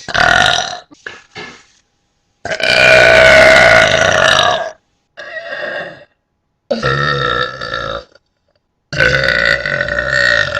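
A person burping deliberately, one loud burp after another with short pauses between; the longest burp lasts about two seconds, a few seconds in.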